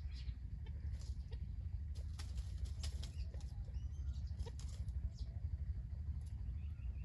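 Crackling rustle of dry leaf litter, a quick run of sharp clicks, as a wild junglefowl walks and scratches over the fallen leaves. A few faint chirps sound over a steady low rumble.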